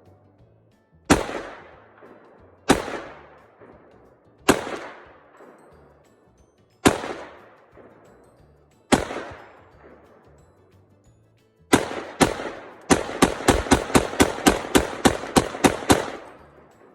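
Zastava AK-pattern rifle firing: six single shots a second or two apart, each with a short fading echo. Near the end comes a rapid string of about a dozen shots at roughly four a second.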